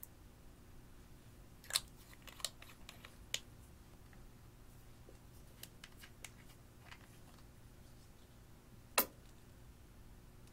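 Sharp clicks and taps of small plastic makeup containers being handled over a glass bowl: a few at the start, some fainter ones in the middle, and a single louder click near the end, in an otherwise quiet room.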